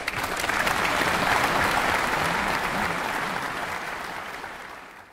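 Concert audience applauding, breaking out all at once as the final piano chord dies away. The applause is loudest about a second in and then slowly thins.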